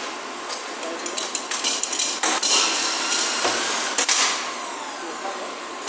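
Metal tools clanking and rattling against each other and the steel tool box as they are lifted out, with a dense run of sharp knocks from about one to four seconds in.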